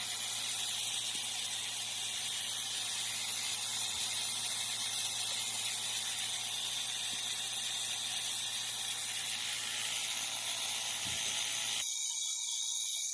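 Refrigeration vacuum pump running steadily while evacuating a refrigerator's sealed system, a constant hiss over a low hum. About twelve seconds in the sound changes abruptly and the low hum drops away.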